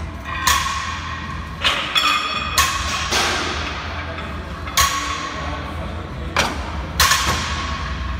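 A barbell loaded with cast-iron weight plates clanking down on the gym floor during deadlift reps: about seven sharp clanks, one to two seconds apart, each with a brief metallic ring.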